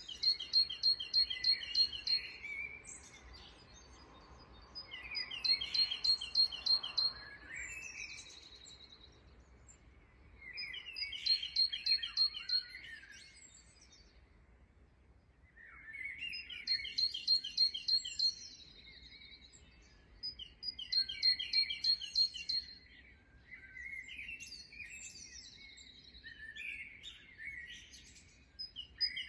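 Songbird singing a repeated song about every five seconds, each phrase a fast run of short, high repeated notes mixed with lower sweeping notes.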